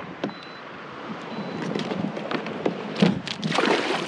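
Water splashing and lapping around a kayak, with scattered small knocks and taps, getting louder near the end.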